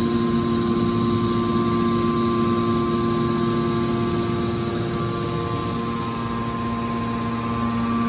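Hydraulic pump motor of a metal baler running: a steady hum with several held tones. The deepest tone weakens a little past the middle and comes back near the end.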